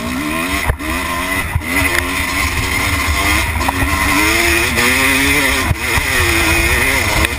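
Dirt bike engine heard close up from an onboard camera, its revs rising and falling over and over as the throttle is worked, with wind noise and a few sharp knocks from the bumpy track.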